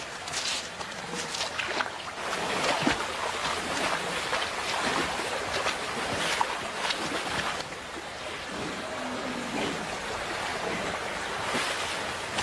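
Shallow river running over stones, a steady rush of water with short splashes and scuffs scattered through it.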